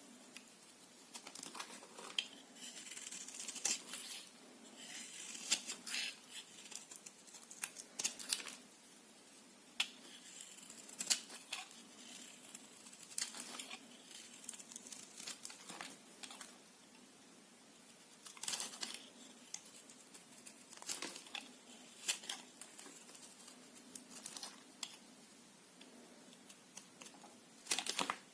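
Knife cutting into a bar of soap: crisp, crackling cuts and crumbling, coming in about a dozen short irregular clusters.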